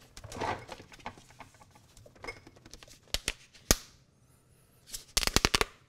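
Hands rummaging on refrigerator shelves, with plastic containers and packaging rustling and knocking. There are a few sharp clicks about three seconds in and a quick rattle of clicks near the end.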